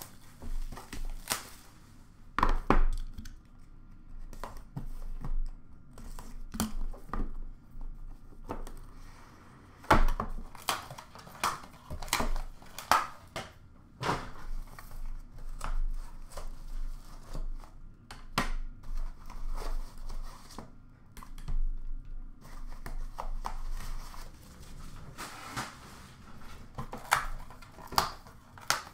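Leaf Superlative hockey card box being handled and unpacked: packaging crinkling and tearing, with scattered sharp knocks and clicks as the box and cards are set down and shifted on the counter.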